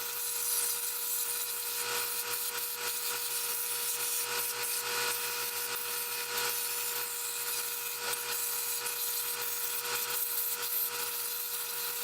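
Sandpaper held against a cedar candlestick spinning on a wood lathe: a steady rough-sanding hiss over the lathe's steady whine.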